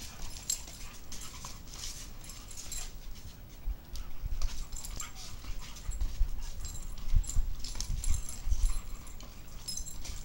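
Two Scottish Deerhounds play-fighting: scuffling and quick clicks of claws on patio paving, with brief dog whines. Dull thumps come between about four and nine seconds in.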